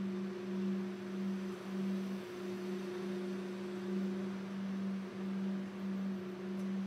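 A sustained low humming drone with a slow, regular waver, a second steady higher tone held above it, and a soft hiss underneath.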